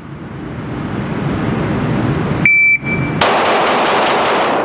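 A rushing noise grows louder, then an electronic shot timer gives a short beep about halfway through. A 2011-style competition pistol fires six rapid shots, the first about three-quarters of a second after the beep and the rest about a fifth of a second apart: a timed bill drill.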